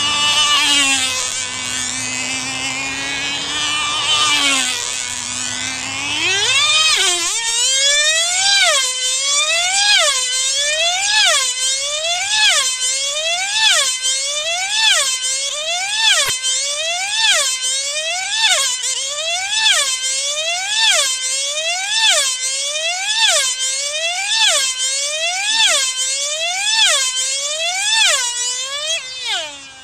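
Irvine 15 2.5 cc two-stroke racing engine of a control-line speed model, running flat out on a single-blade carbon-fibre propeller with a high whine. Its pitch swings up and down about once a second as the model sweeps past on each lap of the circle. About seven seconds in, the pitch climbs sharply as the model comes up to speed.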